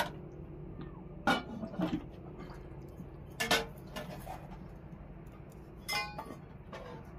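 Metal cooking pots, a pot lid and a ladle clanking: a few separate knocks and clinks as the lid is set on a pot over a wood fire, one near the end ringing briefly.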